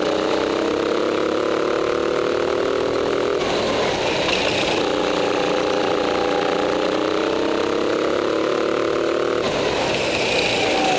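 Small go-kart engine running hard, its pitch climbing steadily as the kart accelerates down a straight. About three and a half seconds in, and again near the end, the engine note breaks off as the kart slows into a turn, with a brief high screech of tyres scrubbing on the indoor track floor.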